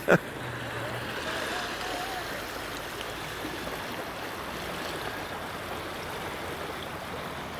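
Steady rush of a fast-flowing river running high with rain and snowmelt.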